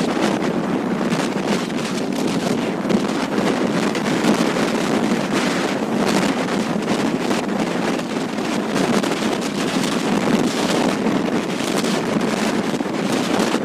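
Strong wind buffeting the microphone on a ship's open deck in a steady, gusty rush, over the sound of rough sea breaking alongside.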